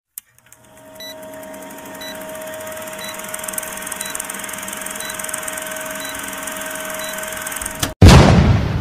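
Old film-projector countdown sound effect: a steady whirring rattle with a short tick each second. About eight seconds in it cuts out and a loud explosion bang hits and dies away over a second or so.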